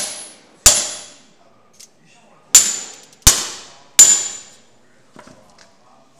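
Hammer striking the head of a second hammer held as a punch against thin copper petals on a wooden block: four sharp steel-on-steel clangs, each with a short high ring. One comes about half a second in, then three follow about two-thirds of a second apart, and faint clinks of the tools being handled come near the end.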